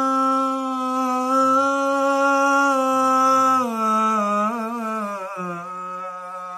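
A man's voice chanting Arabic sholawat, holding one long steady note and then sliding down through a wavering, ornamented run to a lower note that fades near the end.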